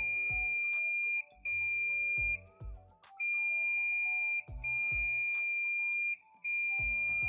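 Continuity beeper of a Fluke 787 multimeter sounding a steady high tone in five stretches of about one to one and a half seconds, with short gaps and a low thud as the probes touch down. The beep signals a dead short across the amplifier's IGBT: the transistor has failed shorted.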